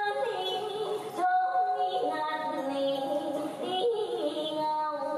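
Traditional Vietnamese water-puppet music: a woman singing a melody with sliding notes over instrumental accompaniment.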